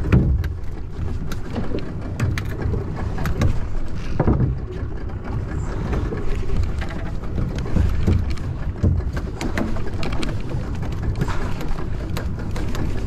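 Small fishing boat on the water: a steady low rumble with scattered clicks and knocks, and a few louder thumps.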